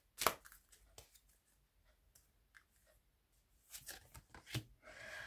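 Tarot cards being handled: two sharp card snaps at the start, a few faint ticks, then a cluster of quick card flicks about four seconds in.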